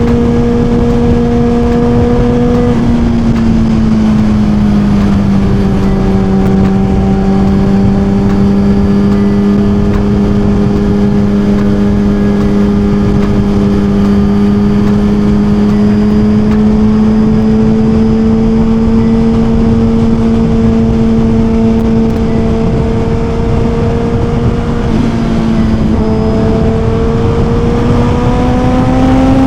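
2023 Suzuki GSX-R1000's inline-four engine running at a steady cruise under heavy wind noise, its pitch easing down a few seconds in and rising again near the end as the throttle opens.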